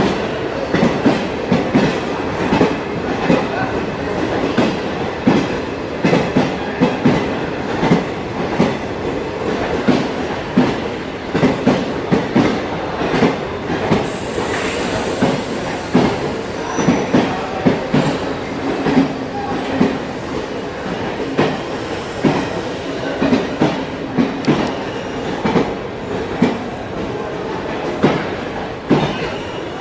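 Passenger train's wheels clattering over rail joints, with many irregular knocks and some wheel squeal.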